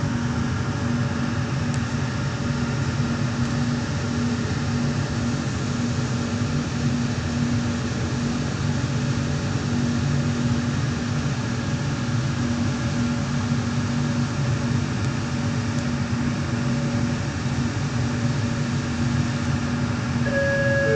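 Steady hum and rumble inside a light-rail train car, with a low tone that comes and goes.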